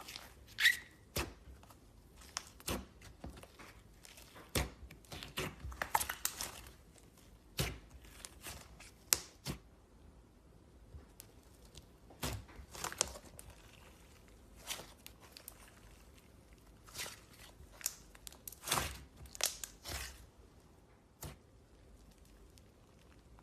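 Slime being kneaded and stretched by hand: irregular sticky pops, crackles and tearing sounds, coming in bunches with short quiet gaps.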